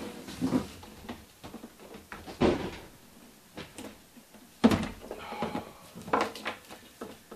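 A plasma cutter is lifted out of its cardboard box with scraping and rustling of cardboard, then set down on a countertop with a sharp thump about two-thirds of the way through. After that its cord rattles softly as it is handled.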